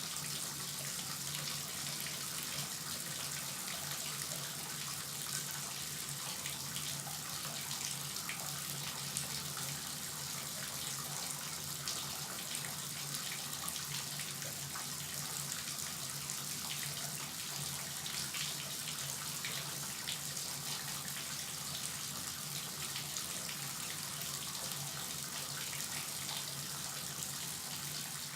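Bathtub faucet running steadily, water splashing into the tub in an even hiss with small splashes.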